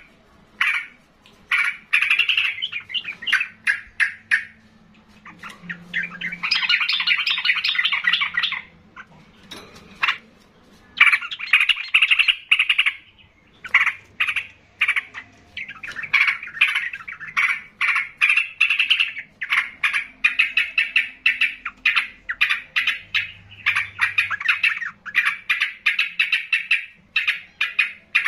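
Caged yellow-vented bulbul (trucukan) singing loudly and persistently: long phrases of rapid, chattering notes with short pauses between them.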